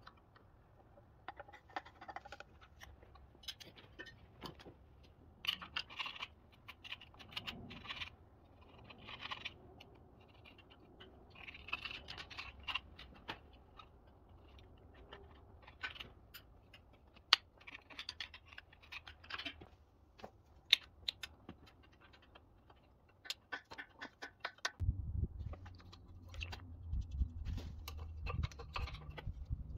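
Steel open-end wrench clicking and scraping on the cylinder-base nuts of a small two-stroke engine as they are worked loose, in irregular small metallic clicks and scratches. A low hum comes in near the end.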